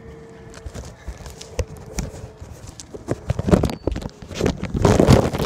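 Footsteps on wet ground, then close crackling and rustling from the plastic bag around the phone as it is handled, getting louder and denser over the last two seconds.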